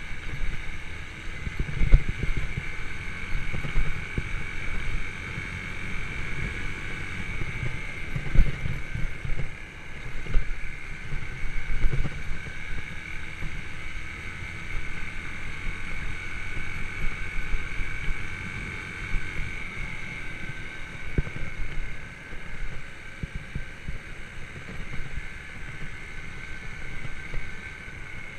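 Yamaha YBR125 motorcycle's single-cylinder four-stroke engine running steadily while riding, with wind on the microphone and irregular low thumps.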